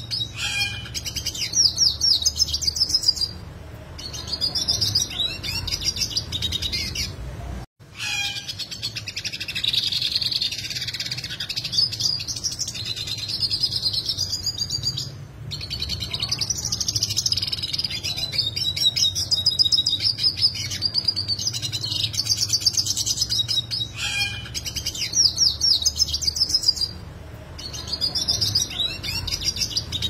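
Yellow siskin singing a long, complex twittering song full of fast, sharp trills, broken by short pauses about 4, 15 and 28 seconds in. A faint low hum runs underneath.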